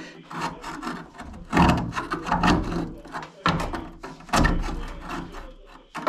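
Irregular scraping and rubbing as a screwdriver works at a washing machine's drain pump and hose, prying out hardened cement debris that clogs the drain. Several louder scrapes come about a second apart.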